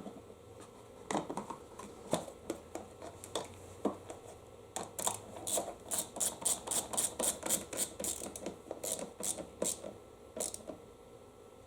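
Hand tool clicking while fasteners on a small mower engine are snugged down: a few scattered clicks and knocks, then a steady run of sharp ratchet-like clicks at about four to five a second for a few seconds, tailing off to a few more clicks.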